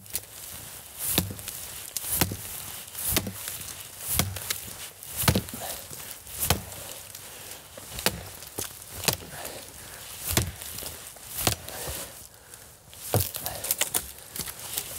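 Hand-forged single-handed bearded axe (skäggyxa) chopping into the trunk of a thin dead standing tree: a steady series of sharp chops into dead wood, about one a second, a dozen or so in all.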